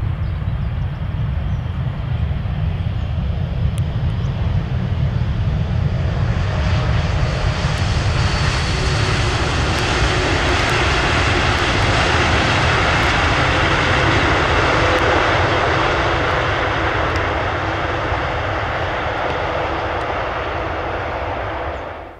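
Jet airliner coming in to land passes by, its engine noise swelling to a peak about halfway through and then fading, with a faint steady whine over the rumble. The sound cuts off suddenly near the end.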